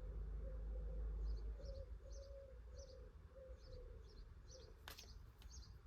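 Bird-sound ringtone playing on a Realme C55 phone: short high chirps about twice a second over a lower, repeated cooing note, with a sharp click near the end.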